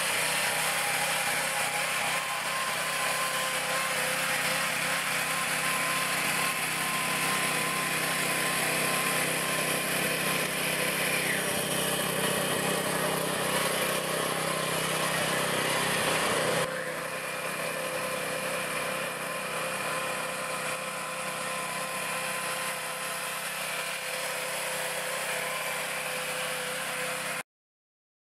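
California Trimmer 25-inch reel mower's Honda GX160 single-cylinder four-stroke engine running steadily while mowing. The sound shifts abruptly and gets a little quieter about two-thirds of the way through, and cuts off shortly before the end.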